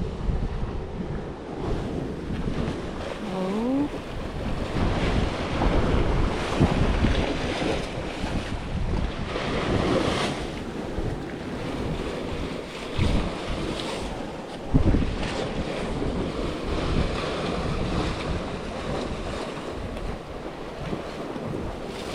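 Sea waves washing, with wind buffeting the microphone. There is a short rising tone about three and a half seconds in, and a sharp knock about fifteen seconds in.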